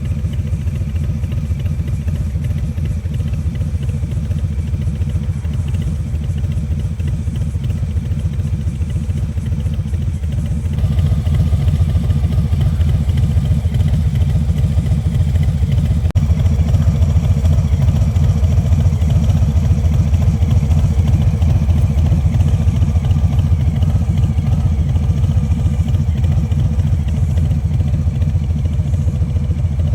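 A Harley-Davidson Street Bob 114's Milwaukee-Eight 114 V-twin running steadily at idle through a Rinehart exhaust with a deep, even rumble, growing louder about eleven seconds in.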